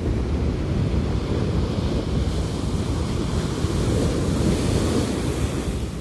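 Small sea waves breaking and washing up a sandy beach, the foam hissing, with wind rumbling on the microphone. The hiss of the surf swells over the second half.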